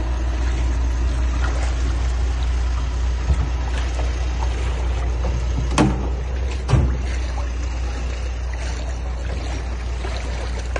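Steady low rumble with a few short sharp knocks as the aluminium boat is handled, the two loudest close together a little past the middle.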